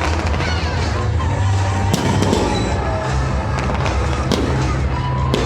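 Fireworks going off, with sharp cracking reports about two seconds in and again just after four seconds.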